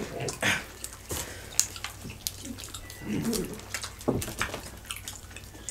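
Several people eating by hand: wet chewing and lip smacking with scattered sharp clicks, and a brief murmur about three seconds in.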